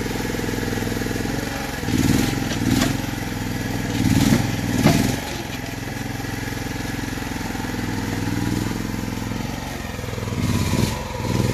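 Mini excavator engine running steadily while its bucket breaks up concrete paving, with short louder bursts of scraping and knocking as the bucket digs into the broken slabs about two seconds in, again around four to five seconds in, and near the end.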